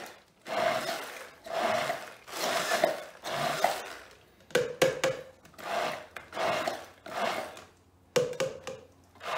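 Handheld stick blender running in short bursts, about one a second, blending basil pesto in a tall beaker until it is smooth.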